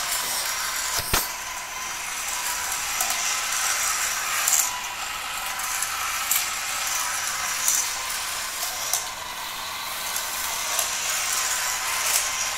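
Battery-powered Track Racer toy race track running: its small motor and lift belts whir steadily as little plastic cars rattle along the plastic track. There is a sharp click about a second in, then lighter clacks every second or two.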